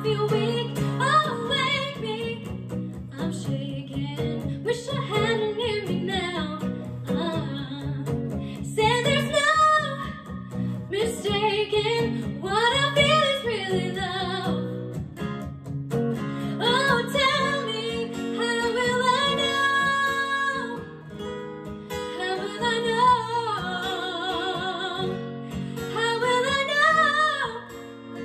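A woman singing a pop ballad over a strummed acoustic guitar, with long held notes sung with vibrato.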